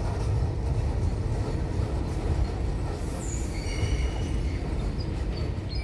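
Freight train wagons rolling past with a steady low rumble. Midway there is a faint, sustained high-pitched squeal from the wheels on the rails.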